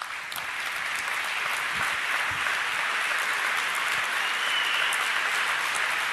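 Large audience applauding, building over the first second and then holding steady.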